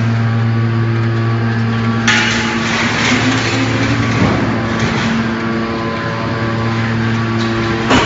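Hydraulic power unit of a Y81F-4000 scrap metal baler running with a steady hum. About two seconds in, a rough hissing noise sets in for a few seconds as the machine works, and a short knock comes near the end.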